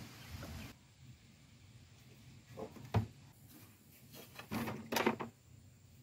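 Light handling noises from hands working on engine-bay wiring: a sharp click about three seconds in and a short cluster of knocks ending in another sharp click about five seconds in.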